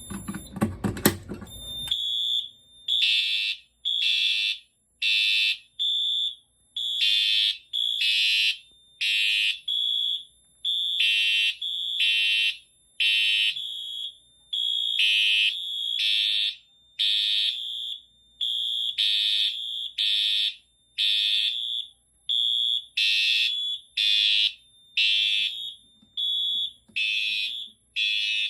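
Fire alarm horn strobes, a Siemens UMHU-MCS and a Wheelock MT, sound together on a conventional alarm panel after a manual pull station is pulled. After a brief clatter at the start, a loud, high-pitched horn tone begins about two seconds in and repeats as on-off blasts in groups with short pauses, the temporal code-3 evacuation pattern.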